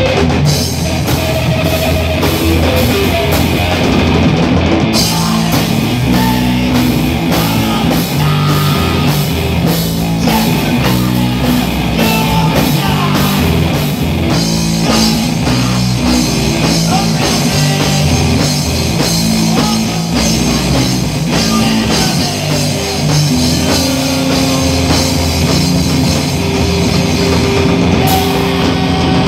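A live noise punk rock trio playing: electric guitar, bass guitar and drum kit, loud and continuous. The drums keep a steady beat, and the cymbals get heavier about halfway through.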